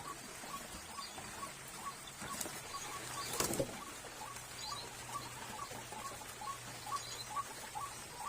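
Rain falling steadily, with a regular series of short, high chirps from a small animal about two to three a second, and one louder rustle about three and a half seconds in.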